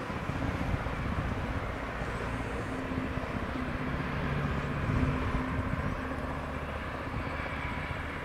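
Airbus A350-1000's twin Rolls-Royce Trent XWB-97 turbofans at takeoff thrust: a steady jet rumble and roar as the airliner rotates and lifts off.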